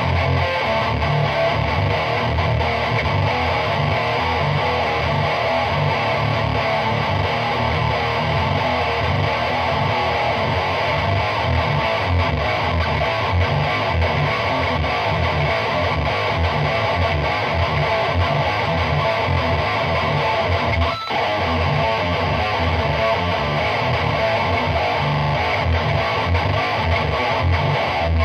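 Gibson SG tuned to D standard played through a chainsaw-style Lone Wolf Audio distortion pedal into a Peavey 6505 amp and Emperor 2x12 cabinet: heavily distorted, fast-picked low riffing with palm-muted chugs, broken by a momentary gap about 21 seconds in.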